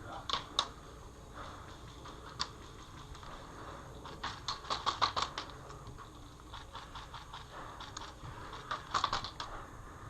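Airsoft guns firing in short bursts of sharp clicks: a couple of shots near the start, one a little later, a rapid burst of about eight shots in the middle and another quick group near the end.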